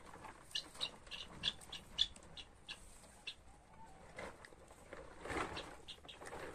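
Hens pecking at a pile of fresh greens: quick, irregular beak taps and leaf rustling, several a second, with a louder rustle about five seconds in.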